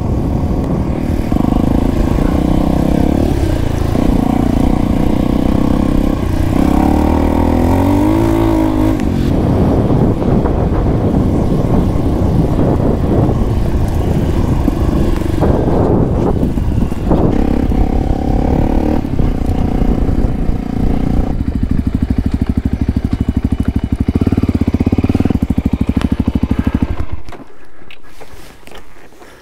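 Voge 300 Rally's single-cylinder engine running as the bike is ridden, its pitch stepping and swooping up and down with throttle and gear changes. Near the end the engine sound falls away abruptly.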